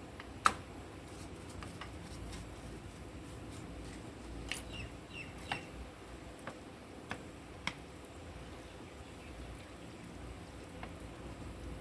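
A quiet background broken by a few sharp clicks and knocks, the loudest about half a second in, with several short bird chirps near the middle.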